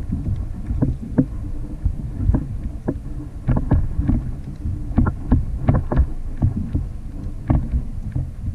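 Water lapping and slapping against a plastic sit-on-top fishing kayak's hull, with irregular sharp knocks about once or twice a second over a steady low wind rumble on the microphone.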